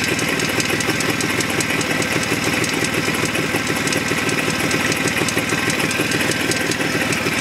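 Jawa 634 350cc two-stroke twin engine idling steadily with a rapid, regular knock. The knock is not in the ignition, since pulling the spark plugs does not change it, and it goes away when riding; the owner wonders whether it is the primary chain.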